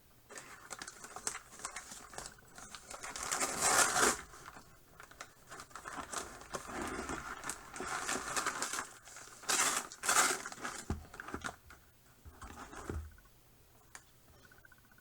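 Packaging being handled and torn open: irregular crinkling and tearing rustles, with the loudest bursts about four seconds and ten seconds in.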